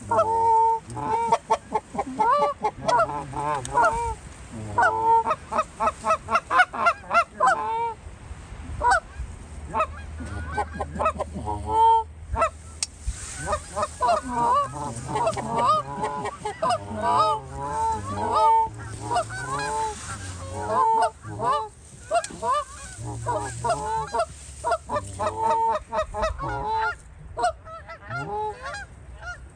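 A flock of Canada geese honking, many calls overlapping without a break.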